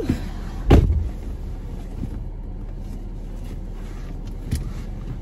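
Someone settling into a car's driver's seat: one loud thump about a second in, then a couple of lighter knocks, over a steady low hum.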